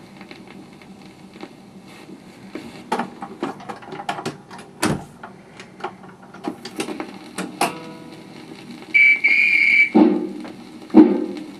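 A 1966 General Electric V631 portable record changer cycling between 78 RPM records. There is a faint surface hiss, then a string of mechanical clicks and clunks as the changer works, with a loud clack about five seconds in as the next record drops onto the platter. Near the end the next record starts playing through the built-in speaker: a held high tone, then a steady beat.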